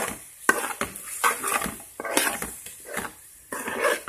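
Metal spoon scraping and clinking against a metal pan while small fish in oil and chilli masala are turned, in several short strokes with sharp clicks.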